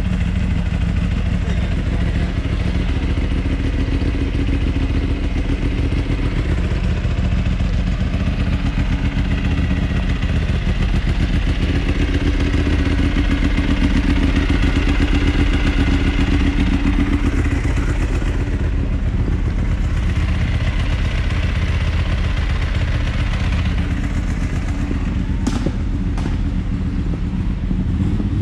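Ducati sports motorcycle engine idling steadily close by, a little louder for a few seconds midway. A sharp click near the end.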